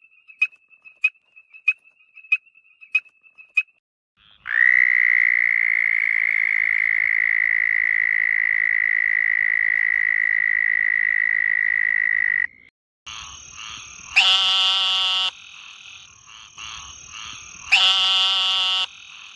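Frogs calling, several different kinds in turn. First comes a run of about seven short, high pips, one every half second or so. Then one long, steady, high-pitched call holds for about eight seconds. Last, a steady high background call is broken twice by loud, harsh, buzzing croaks, each about a second long.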